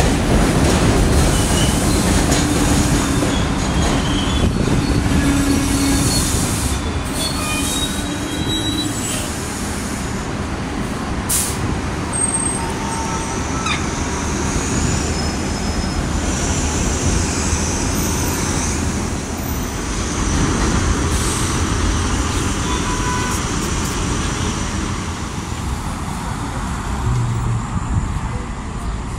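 An elevated 6 subway train running on the steel structure, its wheels giving short, high metallic squeals now and then over a steady din of street traffic.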